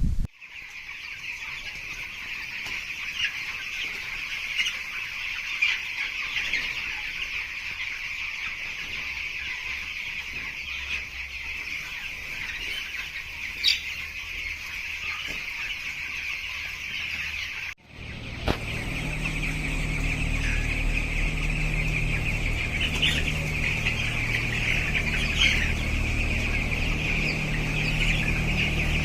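A large flock of chickens in a poultry house, calling continuously in a dense, unbroken din. After a cut about two-thirds of the way in, a low steady hum runs under the calls.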